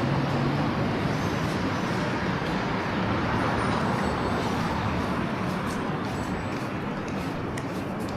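Steady traffic and vehicle noise, an even rumble and hiss with no distinct events.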